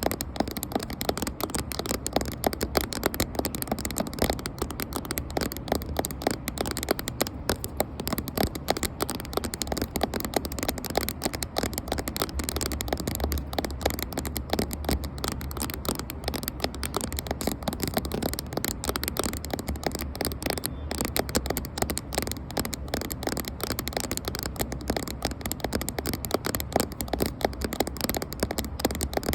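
Fingers tapping rapidly on a camera close to its microphone: a dense, unbroken stream of small dull taps, many a second, with a light scratchy texture.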